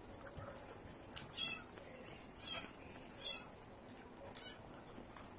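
Several short, high-pitched animal calls, about a second apart.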